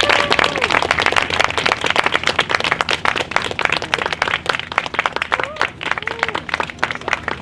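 Audience applauding, with a few short rising-and-falling cheers; the clapping thins out and gets quieter toward the end.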